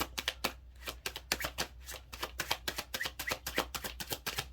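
Tarot cards being shuffled by hand: a quick, uneven run of crisp card-stock clicks and riffles, with a short pause just after half a second in.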